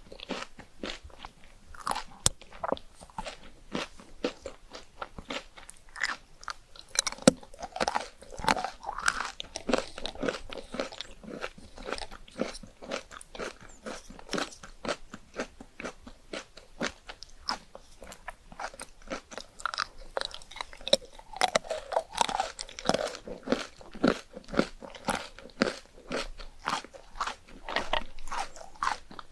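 Close-miked eating of chocolate ice cream: a steady run of sharp crunches, several a second, mixed with wetter chewing sounds.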